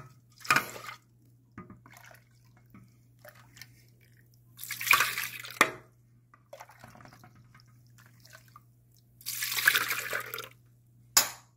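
Water poured from a stainless steel pot into a plastic tub of dongchimi brine, splashing. There is a short pour near the start, then two longer, louder pours about four seconds apart, with small drips between and a sharp knock near the end.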